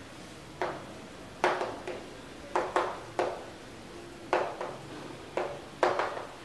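Chalk writing on a chalkboard: about a dozen short, sharp taps and scrapes in irregular groups as the letters are stroked out.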